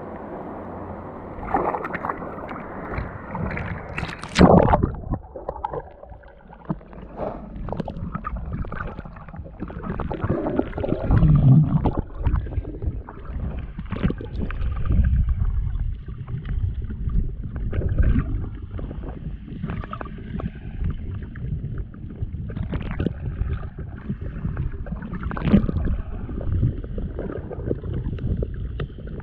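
Muffled water sounds of a camera in shallow sea water: irregular gurgling, sloshing and low knocks, with a loud rush of water about four seconds in.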